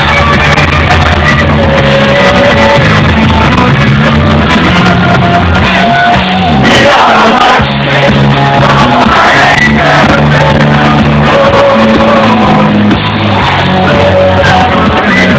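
Live rock band playing loud from the stage, with bass, drums and a lead singer, and shouting from the audience. The bass drops out for about a second midway, then the band comes back in.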